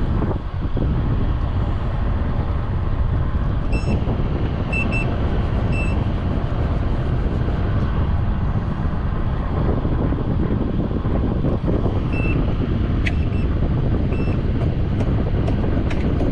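Steady low rumbling noise, with a few short electronic beeps about four to six seconds in and again about twelve seconds in.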